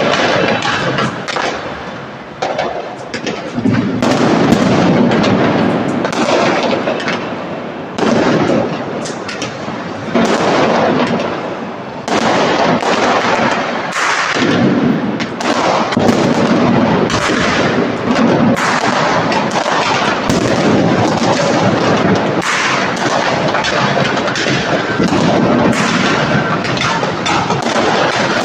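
Fireworks and firecrackers going off in a continuous barrage of overlapping sharp bangs and crackling, with heavier booms rising and falling every few seconds.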